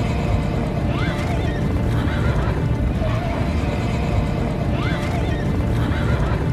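Cavalry charge: many horses galloping in a dense, continuous rumble of hooves, with horses whinnying over it. The same rising whinny comes twice, about four seconds apart.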